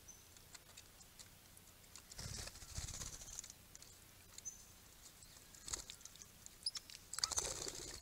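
Swift parrots bathing in a shallow pond: splashing water and wing flapping in two bursts, about two seconds in and again near the end, with a few short high chirps between.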